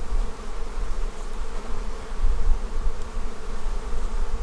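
Honeybees buzzing steadily around an open hive with frames pulled, a constant hum with a low rumble underneath.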